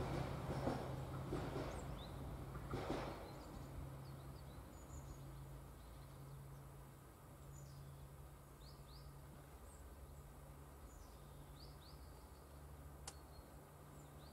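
Quiet rural ambience with small birds chirping faintly and a steady low hum. A dull noise fades away over the first few seconds, and there is a single sharp click near the end.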